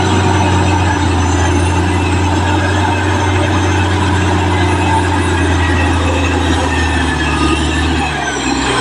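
Caterpillar D6R XL bulldozer's diesel engine running steadily under work, a deep even hum with overtones; the low hum drops off shortly before the end.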